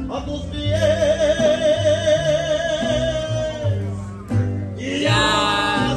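Live Latin music: a singer holds a long note with vibrato over guitar accompaniment. A new sung phrase starts about five seconds in.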